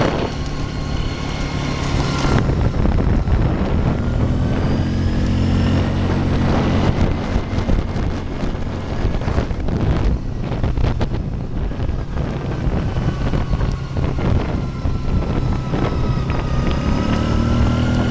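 Small off-road vehicle's engine running as it drives along a dirt ranch track, with a thin whine that rises in pitch as it picks up speed. Wind buffets the microphone, and there are scattered rattles over the middle stretch.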